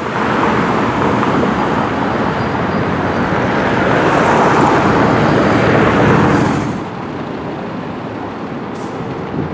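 Heavy road vehicle driving past close by: loud engine and road noise that swells and then drops off sharply about seven seconds in.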